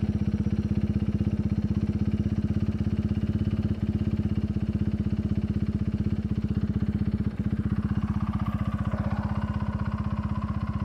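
Yamaha Warrior 350 ATV's single-cylinder four-stroke engine running steadily at idle close by, an even rapid putter that holds one pitch. A fainter higher tone joins it about eight seconds in.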